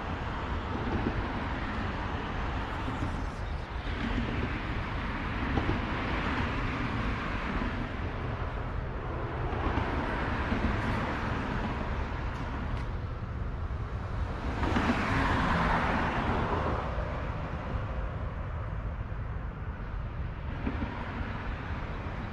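Road traffic on the bridge overhead: a steady rumble with swells as vehicles pass, the loudest about two-thirds of the way through.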